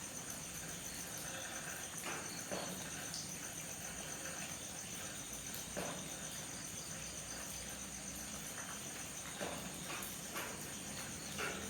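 Crickets chirring steadily, a high, finely pulsed trill, over a soft hiss of light rain. Occasional single drips land every couple of seconds.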